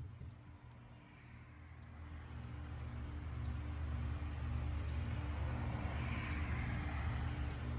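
Low rumble of a motor vehicle with a hiss like tyre noise, growing louder from about two seconds in and holding steady.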